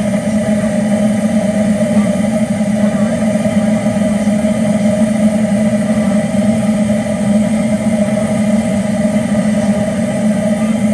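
Steam-atomized Delavan diesel oil burner firing in a small live-steam locomotive's firebox, its atomizing steam heated by a stainless loop in the fire. It burns with a steady, unchanging rushing noise and a low hum.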